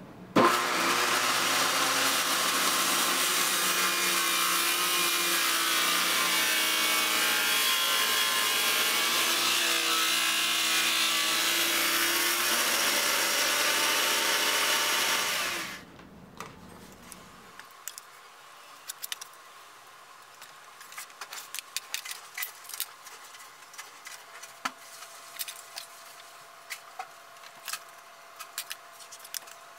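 Electric power saw cutting wood in one long, steady cut of about fifteen seconds, then winding down. It is followed by quiet scattered clicks and taps of wood being handled.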